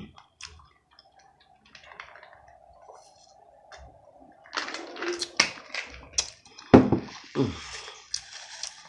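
Close-up eating sounds of fried fish: wet chewing, lip smacks and crisp crunchy clicks. It is mostly quiet at first and gets busier about halfway through, with a short vocal sound near the seven-second mark.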